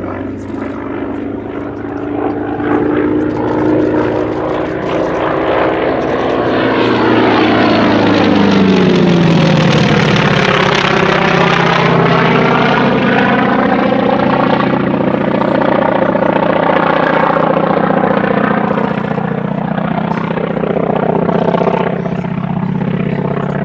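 Radial-engined Second World War naval fighter making a fast pass. Its engine and propeller drone drops sharply in pitch as it goes by, a little under halfway through, then carries on as a steady lower drone.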